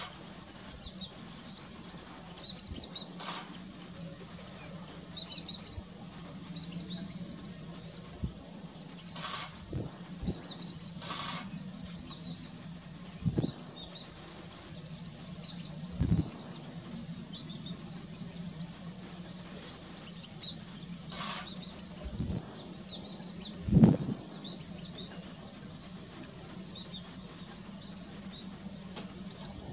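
Small wild birds chirping and twittering in the background throughout, with a few brief hissy rushes and several low thumps, the loudest near the end.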